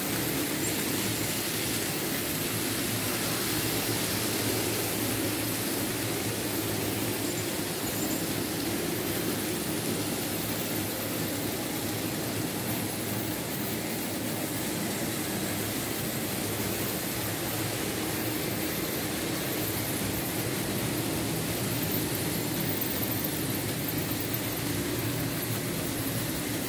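Märklin H0 model trains running on metal track: a steady whir of their small electric motors and rolling wheels.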